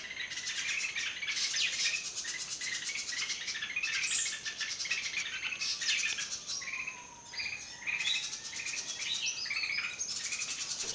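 Small birds chirping and calling outdoors in many short, repeated high calls, with a steady high-pitched insect drone behind them.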